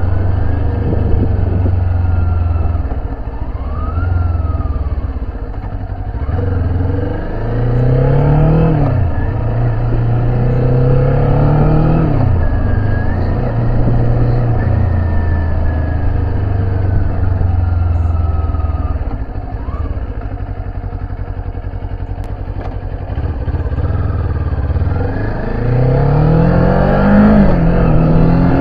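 Kawasaki Z400's parallel-twin engine heard from the rider's seat, giving a deep growl as it revs up through the gears several times and drops back at each shift, with a steady rush of wind.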